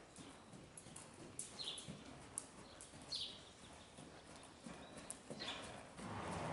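Soft hoofbeats of a ridden horse trotting on sand arena footing, with a louder breathy rush near the end.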